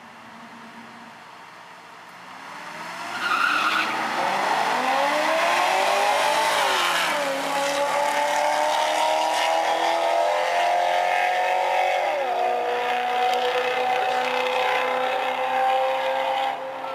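A pickup truck and a Corvette launching side by side down a drag strip: the engines rev at the line, then a brief tire chirp about three seconds in as they leave, and the engine pitch climbs hard with upshifts around seven and twelve seconds in, running flat out down the track before the sound drops away near the end.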